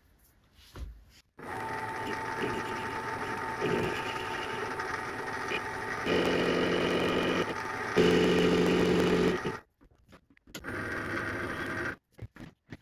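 Paulimot PM190-V benchtop metal lathe running, its chuck spinning an aluminium part: a steady machine hum with a few steady tones, with two louder stretches about six and eight seconds in. It starts after a second of near silence, stops about ten seconds in with a click, and runs again briefly near the end.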